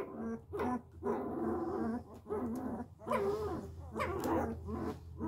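Very young Bernese Mountain Dog puppy whining and squealing in a string of short cries, about one a second, while being handled.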